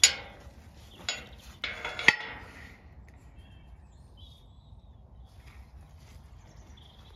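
Metal field gate being shut and latched: a sharp metallic clang that rings off, a second clank about a second later, then a short run of rattling clanks ending in a sharp clink about two seconds in.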